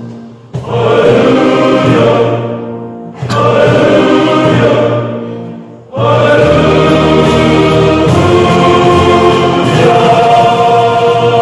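Male choir of novice brothers singing in parts, phrase by phrase: short breaks near the start, about three seconds in and about six seconds in, then a long held passage.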